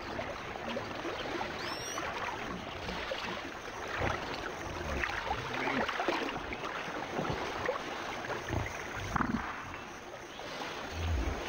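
Water sloshing and splashing as a Nile crocodile wades in and settles into the river, with irregular swirls and laps of water.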